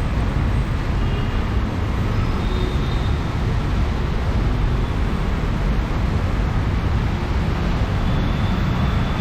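Steady road traffic noise on a wet street in the rain: a continuous rumble and hiss with no single event standing out.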